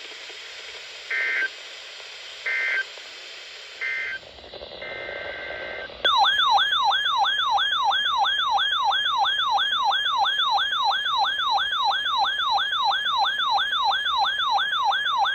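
Three short EAS digital end-of-message bursts, buzzy data chirps about a second and a half apart, closing the warning, then a brief steady tone. About six seconds in, a loud electronic alert tone starts: a siren-like sweep rising over and over, about three times a second.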